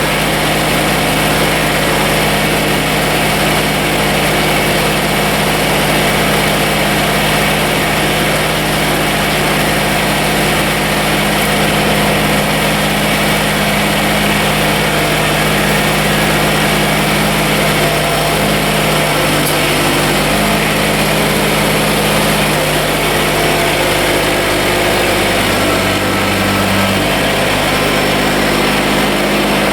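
Kubota BX24 compact tractor's three-cylinder diesel engine running steadily at idle, its pitch shifting slightly a few times.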